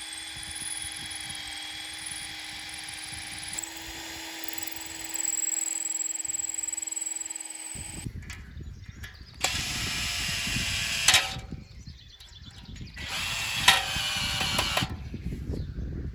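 Power drill fixing a sign to a wall: one long steady run that steps up in pitch about three and a half seconds in and stops about eight seconds in, then two shorter bursts.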